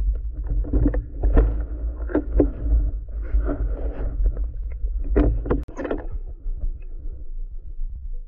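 Water noise picked up by an underwater camera as a diver goes down and swims: a dense low rumble of moving water and gurgling, with many knocks and clicks against the housing, easing off a little past halfway.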